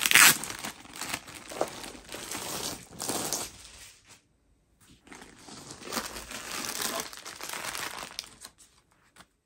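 Plastic packaging crinkling and rustling as a rolled canvas and a plastic-wrapped bundle are handled and unwrapped. A sharp crinkle at the very start is the loudest, then two bouts of rustling with a short pause a little after four seconds in.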